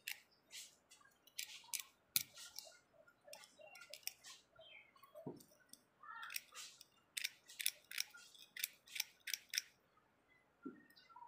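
A thin metal tool scraping the metal terminals and wire ends of an e-bike charging socket: a string of short, faint, irregular scratches, coming thicker about two-thirds of the way through. The scraping cleans the contacts so the solder will take.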